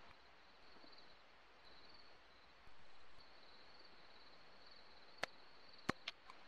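Faint night field ambience: a steady hiss with a high insect trill that comes and goes every second or so. Three sharp clicks about five to six seconds in.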